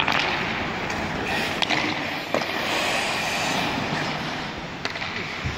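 Ice hockey skate blades scraping and hissing on the ice, with a few sharp clacks of stick on puck, in a large empty ice rink.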